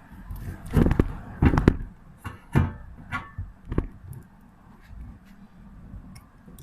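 A quick run of knocks, clicks and scrapes, some with a short ringing, from handling and working on a tablet's lithium battery pack and its circuit board during battery replacement. It settles to faint ticks after about four seconds.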